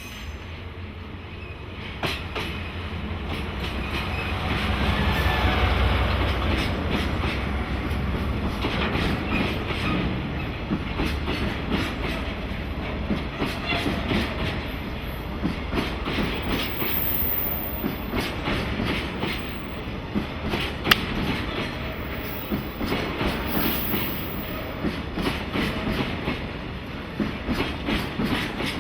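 A JNR DE10 diesel locomotive passes, its engine rumble building to a peak about five or six seconds in. Then comes the clickety-clack of tank-car wheels over the rail joints as the train rolls by, with one sharp crack near the end.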